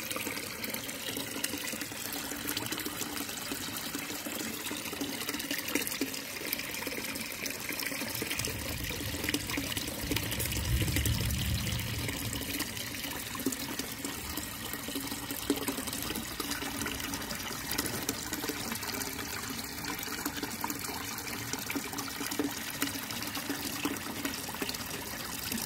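Steady trickling and bubbling of koi pond water at the surface, full of small popping splashes. A low rumble swells briefly around ten seconds in.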